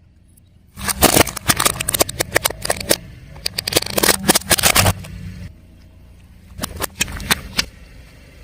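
Car tyre rolling over and crushing brittle objects: a dense run of cracks and snaps from about a second in to about five seconds, then a few scattered snaps, over the low steady sound of the car.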